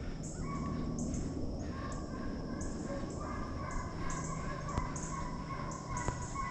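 Deer hounds baying far off on a running trail, several long drawn-out voices overlapping and coming and going.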